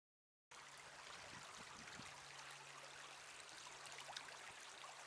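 Faint, steady rush of a small creek flowing, starting about half a second in, with a low steady hum underneath.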